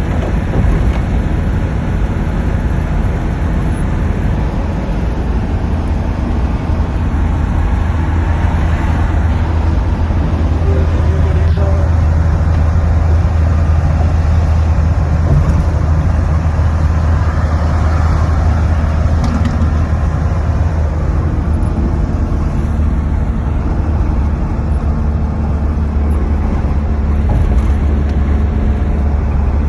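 A steady low rumble with a noisy hiss over it, unchanging throughout.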